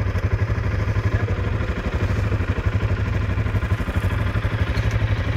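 ATV engine running steadily at low revs close by, with a fast even low pulse.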